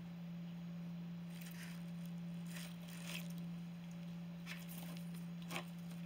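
A kitten biting and tugging at a cardboard box and sisal rope: four short bouts of crackling and tearing, the sharpest about five and a half seconds in. A steady low hum runs underneath.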